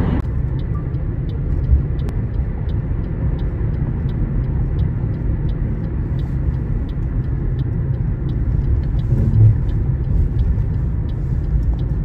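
Steady low rumble of a car's road and engine noise heard from inside while driving, with a faint regular ticking about three times a second.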